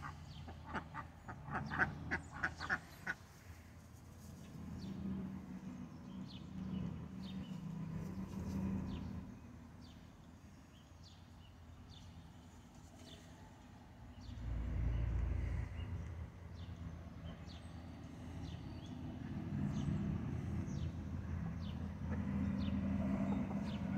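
Domestic ducks quacking in a quick run of about ten quacks during the first three seconds. After that a low steady drone comes and goes, with a brief low rumble about two-thirds of the way through.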